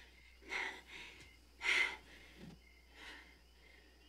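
A few short breathy puffs of breath, the loudest a little under two seconds in.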